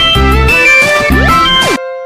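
Loud backing music with heavy bass hits and sliding up-and-down pitches. It cuts off abruptly near the end, where a steady ringing tone starts repeating.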